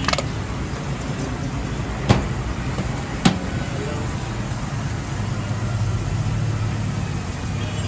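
Steady traffic rumble from the street, with two sharp clicks about two and three seconds in.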